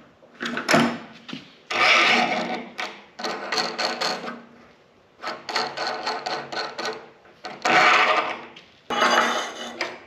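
Steel clamp parts and magnetic bases being handled on a steel welding table: short bursts of metal clicks, knocks and scraping, about six in all, with brief pauses between.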